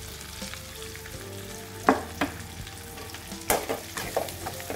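Garlic and curry leaves frying in hot oil in a metal pan, a soft steady sizzle as chilli and coriander powder are tipped in. Utensils knock against the pan twice about two seconds in, then in a quick cluster from about three and a half seconds.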